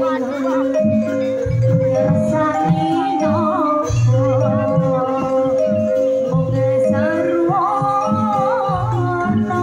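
Live East Javanese gamelan music for a jaranan dance: struck metallophones holding a repeating melody over regular low drum strokes, with a wavering high melody line above.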